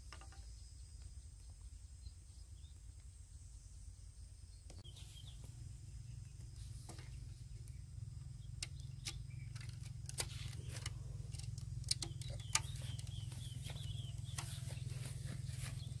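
Handling noise of string being tied around a wooden stake and a plastic soft-drink bottle: scattered small clicks and rustles, thickening after about five seconds, over a low rumble.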